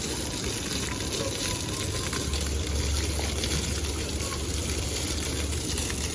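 Steady rush of running, splashing water with a low rumble underneath.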